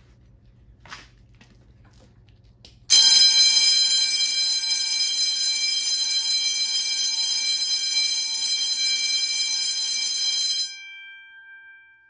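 Edwards 340 fire alarm bell ringing continuously and very loud, measured at 125 decibels from 10 feet. It starts about three seconds in and cuts off after about eight seconds, leaving the gong humming and fading. A faint click comes just before it starts.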